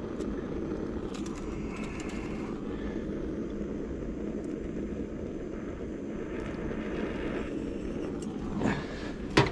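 Handheld butane kitchen torch burning steadily, a continuous low rushing flame noise, while it heats a brass burner seam for soldering. A sharp click near the end.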